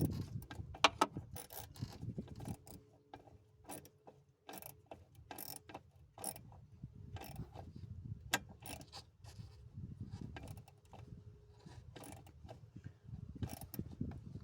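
Irregular metallic clicks and knocks of hand tools and parts being worked under the hood while the throttle body is refitted.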